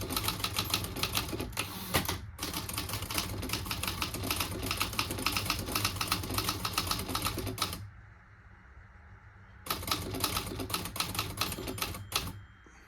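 Remington All New manual typewriter being typed on: a fast, continuous run of key strikes, a pause of about two seconds past the halfway point, then more fast typing.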